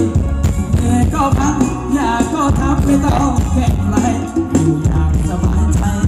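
Live band music for ramwong dancing: a voice singing a melody over a steady beat with heavy bass and shaker-like percussion.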